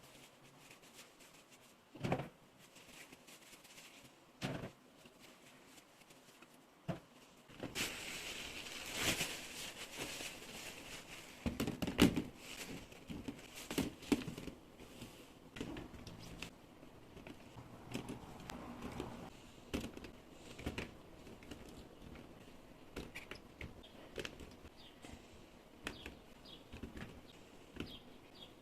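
Household handling sounds in a small room: scattered knocks of items being set down, a stretch of rustling, and many small clicks and taps, like groceries and containers being unpacked and put away.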